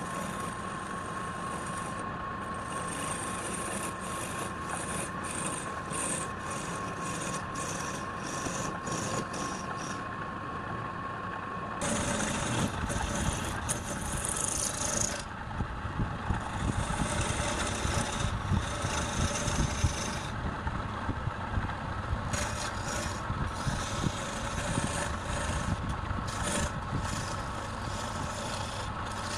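Wood lathe running with a steady whine while a turning tool cuts the spinning wood with a scratchy, scraping sound. The sound changes abruptly about twelve seconds in.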